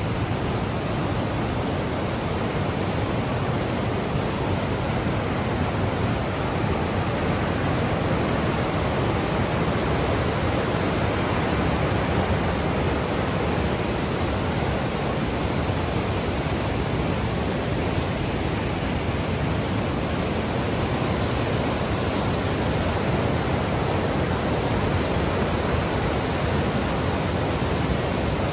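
The Niagara River's class 6 whitewater rapids rushing: a steady, loud, even sound of churning water.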